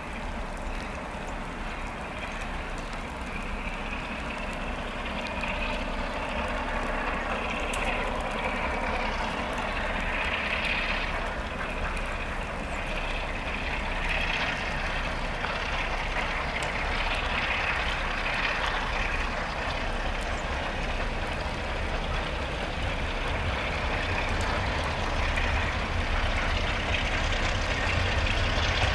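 Two Electroputere LDE2100 (Class 60) diesel-electric locomotives with Sulzer engines working under power as they approach hauling a freight train, a low engine rumble growing slowly louder, most of all near the end, over a steady hiss of rain.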